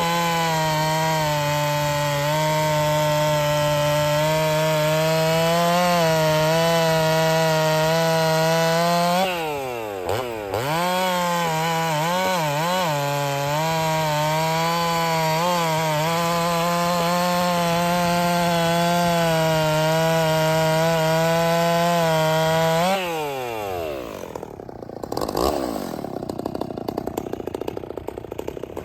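Ported Husqvarna 61 two-stroke chainsaw held at high revs under load, cutting wood. The engine note dips and blips briefly about ten seconds in, runs high again through a second long cut, then drops away about twenty-three seconds in as the throttle comes off.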